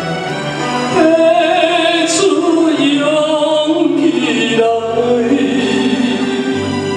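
A man singing a slow ballad into a handheld microphone over a karaoke backing track, holding long notes.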